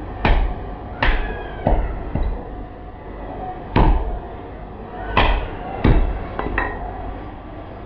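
Hatchet chopping raw pork on a thick wooden chopping block: about eight sharp chops at uneven intervals.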